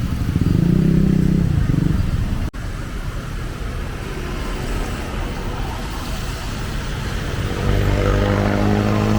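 Street traffic: one motor vehicle's engine passes close by in the first two seconds, and another comes up loud near the end, over a steady wash of road noise.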